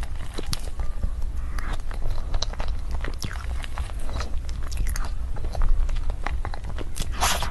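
Close-miked eating of a durian mille-crêpe cake: soft wet chewing with many small mouth clicks and smacks, and a fork working through the cream layers. A brief louder rushing sound comes near the end.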